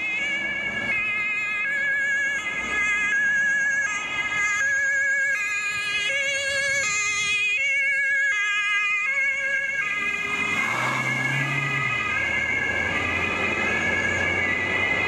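German two-tone emergency siren (Martinshorn) on a police patrol car, stepping between a high and a low tone about every two-thirds of a second. About ten seconds in, tyres squeal under hard acceleration over the engine, and the siren carries on.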